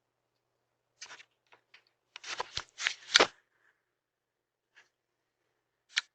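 Irregular short rustling and clicking noises: a few about a second in, a dense cluster of louder ones a little after two seconds, and a sharp click near the end.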